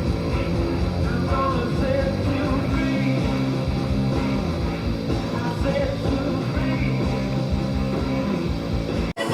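Rock music soundtrack. It drops out for an instant near the end.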